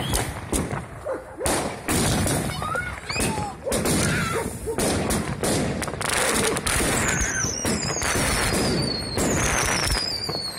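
Fireworks going off: a dense run of bangs and pops throughout, with a series of falling whistles overhead from about seven seconds in.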